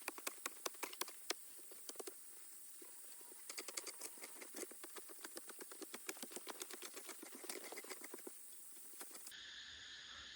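A quick series of sharp taps or knocks, several a second, that thins out about two seconds in, picks up again and stops near the end. After an abrupt cut, a steady chirring of insects.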